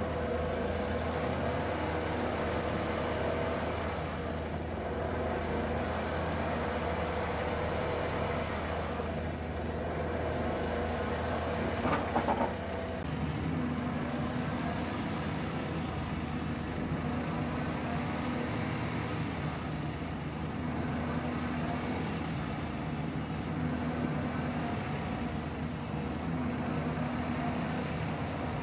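Excavator-mounted hydraulic vibratory pile hammer running as it works steel sheet piles, a steady machine drone with the excavator's engine under it. A brief rattle of knocks about twelve seconds in, after which the drone's tone shifts.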